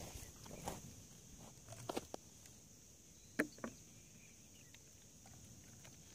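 A few light knocks and clicks from plastic bottles and the launch pad being handled, the loudest about three and a half seconds in, over a faint steady high hiss.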